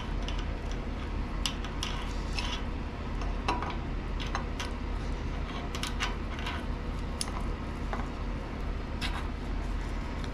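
Double-row steel timing chain and cam sprocket clinking and clicking as they are handled and worked onto the camshaft of a Pontiac 350 V8, with scattered light metallic clicks at irregular intervals over a steady low hum.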